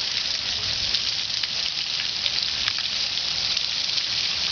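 Steady heavy rain during a thunderstorm: an even hiss with scattered small drop ticks.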